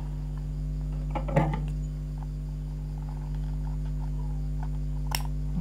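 A steady low hum, with faint rustling clicks of a cloth-covered cone being handled about a second in and a short sharp snip of scissors trimming its edge near the end.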